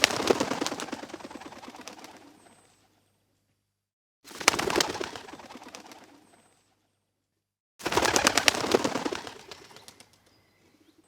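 Bird wings flapping, three times: each is a burst of rapid flaps that fades out over about two seconds.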